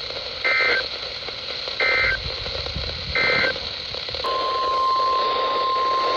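NOAA Weather Radio alert start: three short bursts of SAME digital header data, then about four seconds in the steady 1050 Hz warning alarm tone begins, announcing a new severe weather warning. Heard through a weather radio receiver with steady static hiss.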